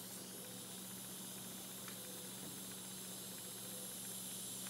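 Steady, faint hiss of air escaping from a Senco pneumatic brad nailer between shots, over a low steady hum.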